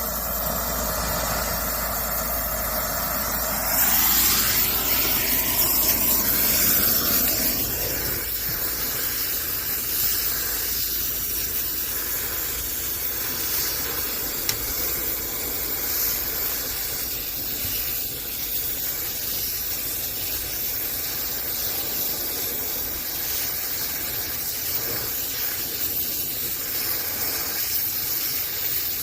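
Brazing torch flame hissing steadily on copper refrigerant line joints, louder and brighter for a few seconds about four seconds in.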